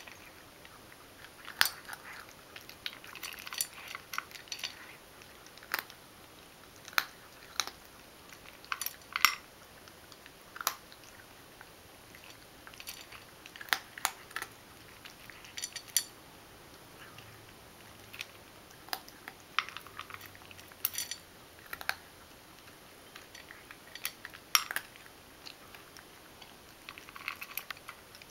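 Ragdoll cat eating dry kibble from a stainless steel bowl: irregular crisp crunches as it bites and chews, with sharp clicks every second or few.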